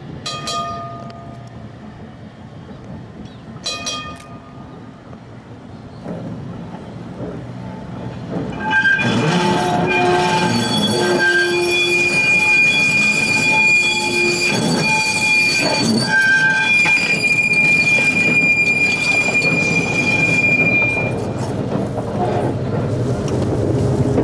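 Two short ringing tones, then a vintage electric tram running on its rails. About eight seconds in, its wheels start a loud, steady, high squeal of several pitches at once, which lasts around twelve seconds before it fades back to rolling rumble.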